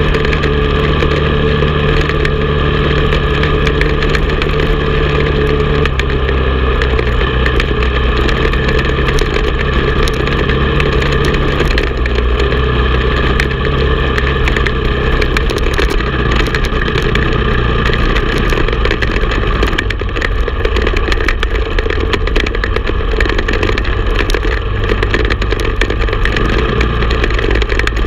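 Honda TRX450 ATV's single-cylinder four-stroke engine running steadily under way, heard from on board. Its pitch steps down twice, about six and twelve seconds in.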